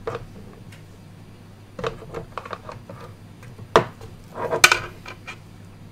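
Power-supply cables and their plastic connectors rustling and clacking as they are handled and sorted, with a sharp click a little under four seconds in and a short cluster of knocks soon after.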